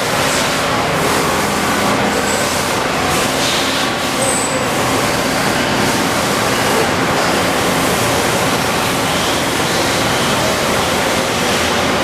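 Steady machine-shop background noise: a constant rushing hiss with a faint hum of machinery beneath, and two brief faint high whistles early on.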